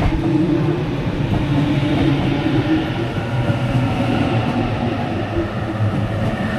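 Sydney Trains electric passenger train running through the station, a loud, steady rumble of wheels on track with faint tones over it.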